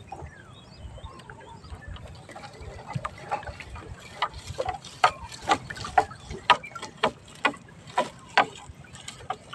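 Wet fishing net being hauled hand over hand over the side of a small outrigger boat, with sharp watery slaps and splashes coming about twice a second from around four seconds in as each length of net comes up dripping.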